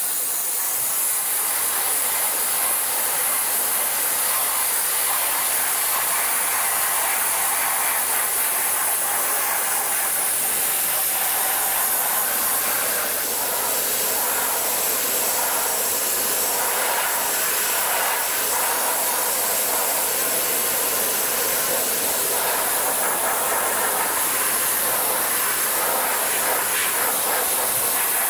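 Dry ice blasting gun firing compressed air and dry ice pellets at a car's rear suspension and underbody: a steady, loud hiss with no break.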